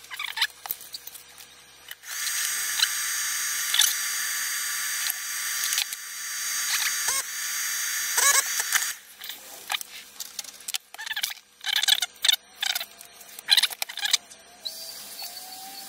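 A small motor running with a steady hiss and a high whine for about seven seconds, easing briefly midway. It gives way to scattered clicks and short squeaks of handling.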